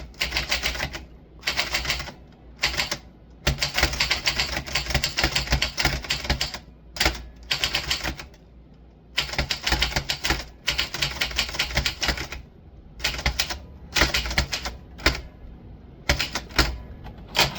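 Typewriter being typed on: runs of rapid keystrikes, each lasting one to two seconds, broken by short pauses.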